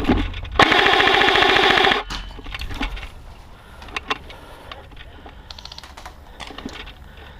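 Airsoft gun firing one rapid full-auto burst lasting about a second and a half, starting just over half a second in. Scattered quieter clicks and ticks follow.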